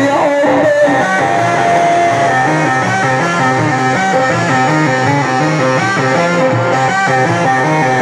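Loud instrumental music from a live band over a sound system: a stepping melody over a steady, repeating bass line, with one long held note about a second in.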